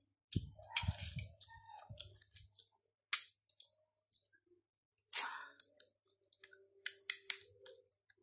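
Chewing at first, then kitchen shears snipping and cracking through the shell of a steamed mud crab claw: a sharp crack about three seconds in, the loudest sound, and more clicks and snaps around five and seven seconds.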